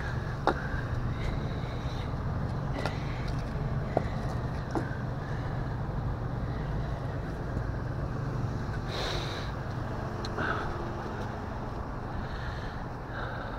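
A tow truck's engine idling steadily, with a few sharp knocks about half a second in and around four seconds in, and a brief rustle later on.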